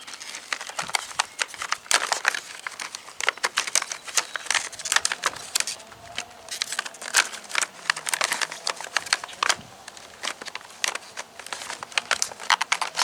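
Irregular crinkling and rustling with many sharp clicks, the sound of a chainsaw chain-sharpening file kit and its packaging being handled.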